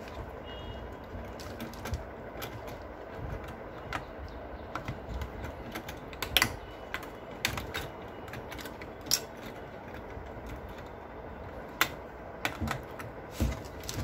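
Scattered sharp clicks and taps from a Gigabyte H310M motherboard's LGA1151 CPU socket, its metal retention lever and load plate, as an Intel Core i5 processor is seated and latched. The loudest clicks come about six and a half seconds in, with a few more near the end.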